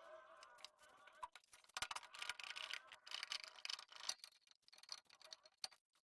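Rear wheel and CVT rear pulley of a Honda Vario 110 scooter turned by hand with the CVT cover off: a faint whirr that stops about a second in, then a run of light ticks and clicks. The roughness is the one the mechanic traces to a worn rear-pulley bearing.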